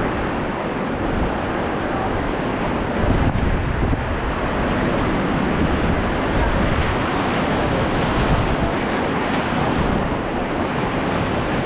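Whitewater of a river rapid rushing steadily around a raft, with wind buffeting the microphone.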